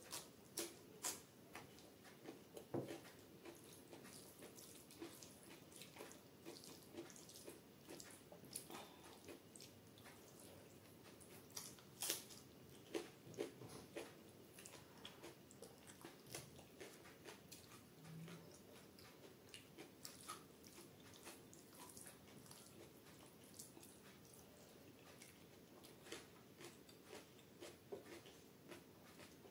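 Close-miked eating sounds: crisp bites and chewing of raw cucumber slices, and wet squishing as fingers mix rice with chana dal dubke. Scattered small crunches and mouth clicks throughout, with one louder crunch near the middle.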